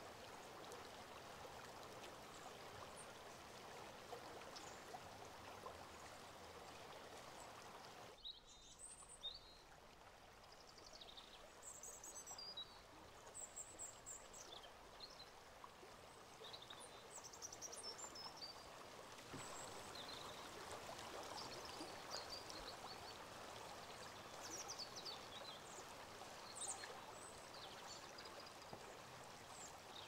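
Shallow river running over rocks: a faint, steady rush of water. From about eight seconds in, birds chirp in short, high calls scattered over it.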